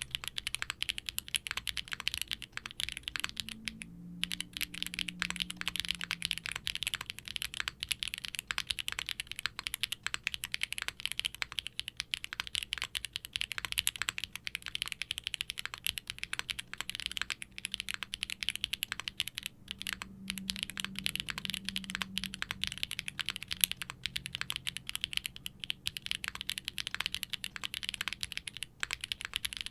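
Continuous fast typing on a Qwertykeys QK60 R3 60% mechanical keyboard with HMX K01 light tactile switches, POM plate, gasket mount and GMK double-shot ABS keycaps. The keystrokes come in a dense, steady stream, with a brief pause about four seconds in.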